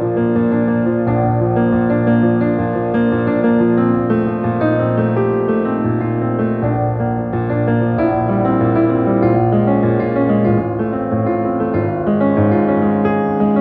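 Instrumental background music led by piano, playing held notes that change every second or two.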